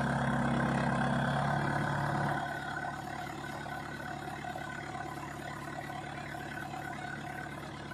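Diesel tractor engine idling with a steady low hum. It turns noticeably quieter about two and a half seconds in and then keeps running evenly.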